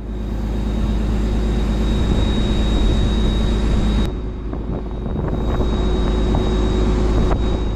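Fishing boat's engine running steadily: a loud low drone with a thin high whine over it. The drone shifts abruptly about four seconds in and again near the end.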